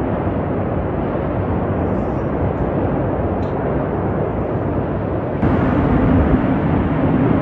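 Deep, steady roar of a huge gas fire burning. About five seconds in it changes abruptly to a louder roar with a steady low hum running through it.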